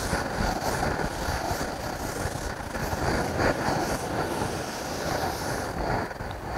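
Board duster rubbing chalk off a chalkboard, a steady scrubbing noise.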